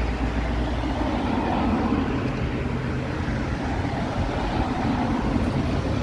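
Steady road traffic, with cars and double-decker buses passing close by and a car going by near the end. Wind buffets the phone's microphone, adding a low rumble.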